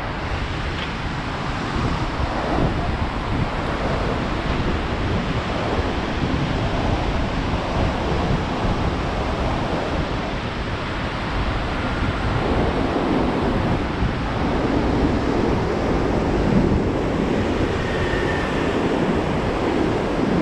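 Wind rushing over a handheld GoPro's microphone as the bicycle rolls along, mixed with sea surf washing below. It grows a little louder about halfway through.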